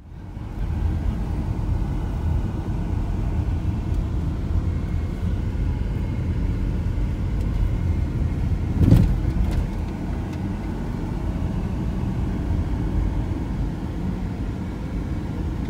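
Volkswagen T4 van driving along a paved lane: a steady low rumble of engine and tyres, with a single sharp thump about nine seconds in.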